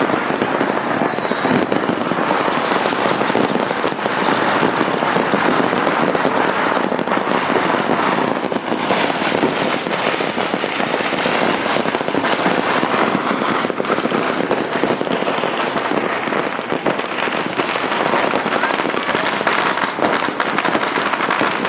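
Fireworks and strings of firecrackers going off all around at once, a loud, dense, unbroken crackle of countless small bangs and pops that never lets up.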